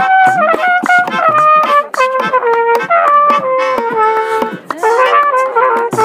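Trumpet playing a melody of held notes that step downward, with a quicker run of notes near the end, over drums and hand clapping.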